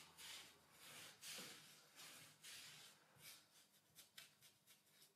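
Faint, soft swishing strokes of a fine paintbrush across the painted wooden panel of a cupboard door. A few longer strokes come first, then quicker, shorter dabs.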